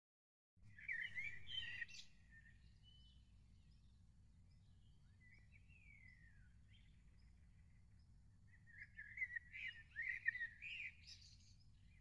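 Small birds singing: a short burst of song at the start, a faint falling whistle around six seconds, then another run of song from about nine to eleven seconds, over a low steady background rumble.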